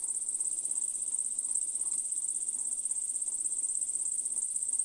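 A steady, high-pitched trilling whine with a fine rapid pulse, running unbroken, over a faint low hum.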